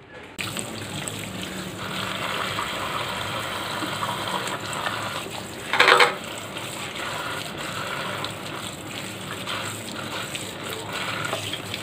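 Kitchen tap running steadily into a stainless-steel sink as pak choy leaves are rinsed by hand under the stream, starting about half a second in. One brief louder sound stands out about halfway through.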